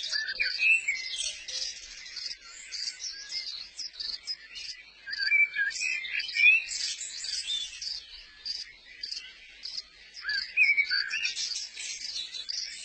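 Birds chirping and twittering in a dense chorus: rapid high chirps throughout, with short swooping call notes a few times, most clearly around the middle and near the end.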